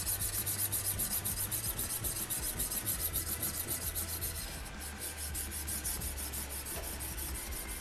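A coarse sharpening stone on a TSPROF Blitz 360 guided sharpener rasps back and forth along the edge of an ice auger blade in quick, even strokes.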